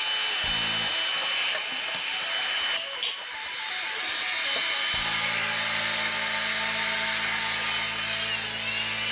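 Handheld electric heat gun running steadily, a blowing rush with a faint high motor whine, as it heats an HDPE plastic frame to soften and flatten a bow in it. About three seconds in there is a sharp knock as a heavy metal weight is set down on the part, and a low steady hum comes in about halfway through.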